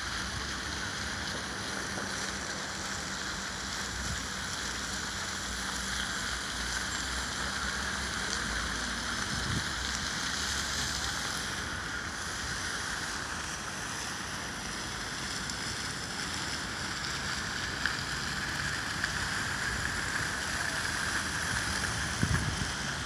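Fountain jets splashing into a pool: a steady rush of falling water, with a few low bumps near the end.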